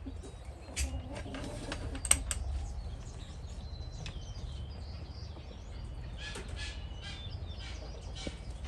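Scattered light clicks and taps of handwork on the install, with birds chirping now and then over a low steady rumble.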